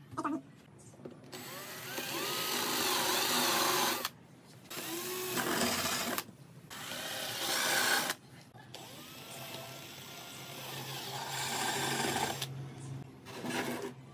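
Handheld power tool running in five bursts of one to four seconds each, with short pauses between them; its pitch wavers up and down as it works.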